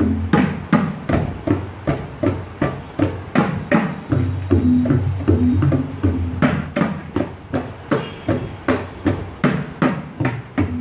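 Two tabla pairs played together in a steady rhythm of about three strokes a second: sharp strokes on the right-hand dayan over a deep, swelling bass from the left-hand bayan, practising the bols ge ge tita ke ke tita.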